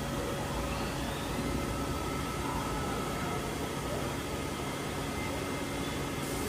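Steady machine-shop background noise: a constant hum of running machinery with a few steady tones over it.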